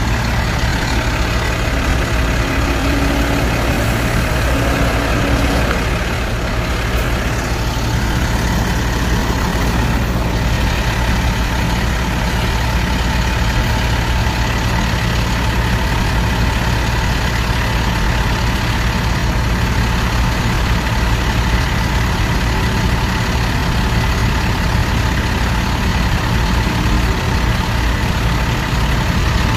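Diesel engine of a heavy municipal sanitation truck idling with a steady low drone, left running while the truck is parked.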